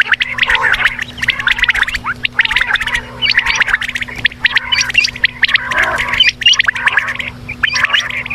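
Quail calling: a dense, unbroken run of rapid chirps and clicks from what sounds like several birds at once.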